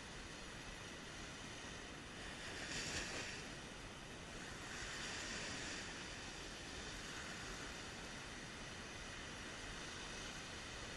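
Surf breaking and washing up a sandy beach: a steady hiss of water, with two louder swells of wash, one about three seconds in and one around five seconds.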